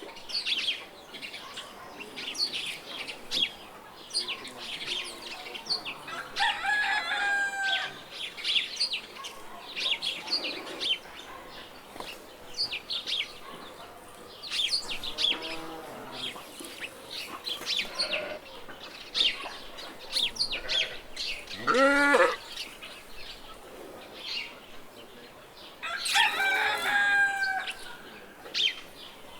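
Farmyard birds: chickens clucking and a rooster crowing among the constant chirping of small birds, with louder calls at about 7, 22 and 27 seconds.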